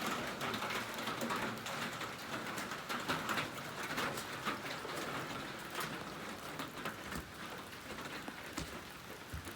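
Fast-flowing floodwater rushing and splashing: a steady hiss dotted with many small crackles and pops.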